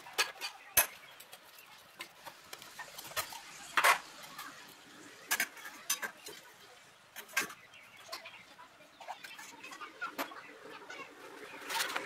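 Scattered sharp metallic clicks, clinks and light scraping as a screwdriver and hands work the chrome rim and housing of a vintage fog light apart. The clicks come irregularly, a second or more apart, the loudest about four seconds in.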